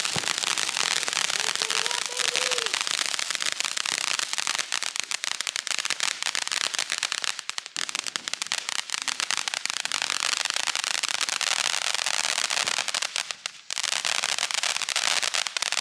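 Ground fountain firework spraying sparks: a steady hiss thick with fast crackling pops. It drops away briefly near the end, then picks up again.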